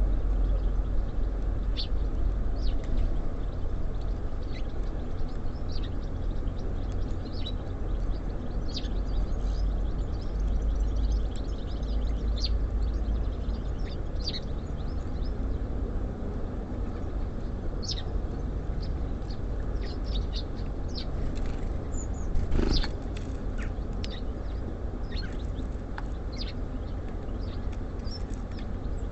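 Small songbirds at a feeder giving short, scattered chirps over a steady low rumble. One sharp knock sounds about three quarters of the way through.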